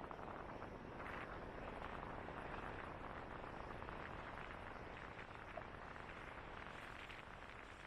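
Faint wind noise on the microphone: an uneven low rumble with a light hiss, with no distinct events.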